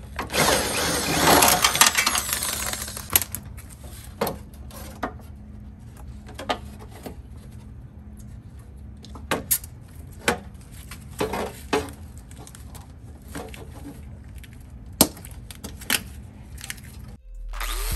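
Cut section of a Jeep TJ's sheet-metal front fender being worked loose and pulled free: a few seconds of scraping and crunching, then scattered clanks and knocks of loose sheet metal.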